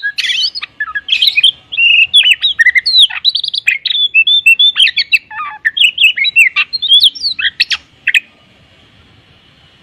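Oriental magpie-robin (kacer) singing a fast, varied song of whistles, sharp notes and quick pitch glides, with mimicked phrases packed in. It stops about eight seconds in.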